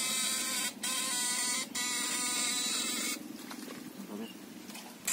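Homemade backpack electrofishing shocker's inverter buzzing while switched on, sending current into the water through the bamboo-pole electrodes. The buzz breaks off twice very briefly and stops about three seconds in.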